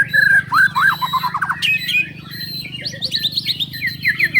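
White-rumped shamas (murai batu) singing, fast strings of whistled notes, sweeps and chatter from more than one bird overlapping, with a quick run of rising notes near the end. A low steady hum runs underneath.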